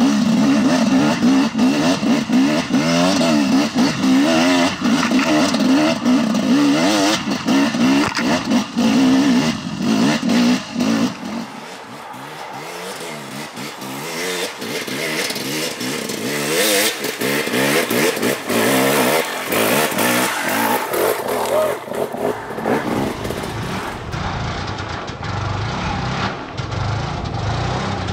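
KTM 300 XC-W two-stroke dirt bike engine revving up and down as it climbs a rocky hill. It is close and loud for the first eleven seconds or so, then farther away and quieter, and grows louder again over the last few seconds as the bike comes nearer.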